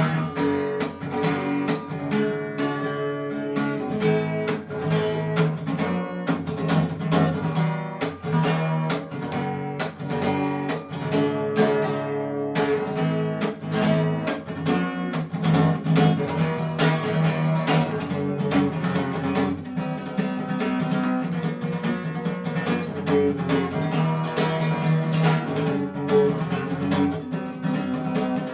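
Instrumental introduction of a song, led by an acoustic guitar strumming chords in a steady rhythm.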